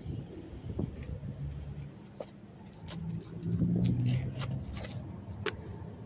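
A car running, with scattered sharp clicks and a louder stretch a little past the middle.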